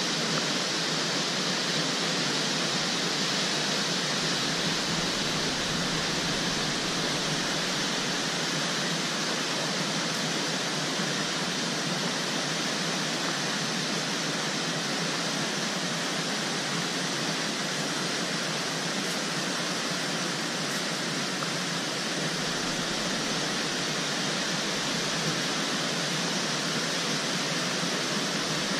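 A tall waterfall plunging into its pool, making a steady, even rush of falling water.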